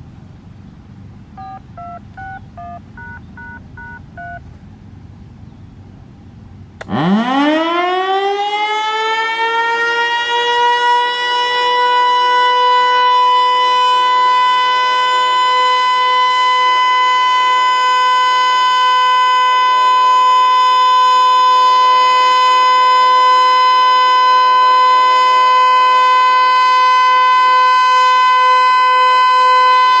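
A short string of touch-tone-like beeps, the siren's activation tones, then about seven seconds in a Federal Signal Eclipse 8 outdoor warning siren starts up. Its pitch sweeps quickly upward and settles into one loud, steady tone: the Alert cycle.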